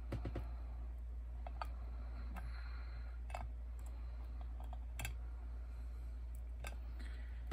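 Small plastic dolls being handled and set down on a metal tray: scattered light clicks and taps, several seconds apart, over a steady low hum.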